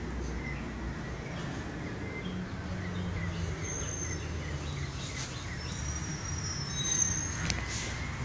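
Outdoor background: a steady low rumble like a distant engine or traffic, with small birds chirping now and then and a few high whistled notes in the second half.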